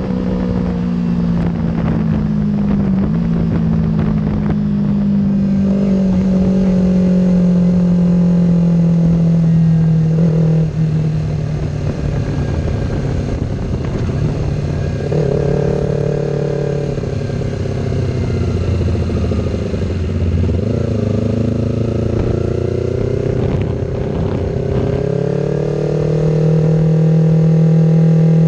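Yamaha R3's parallel-twin engine running at part throttle, heard from the rider's seat under wind rush. The engine note falls slowly over the first ten seconds or so, wavers lower with small dips and rises through the middle, then climbs and holds steady near the end.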